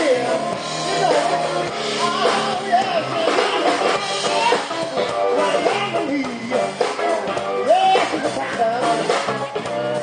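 Live blues-rock band playing: electric guitar and bass with drums, and a singer's voice over the band.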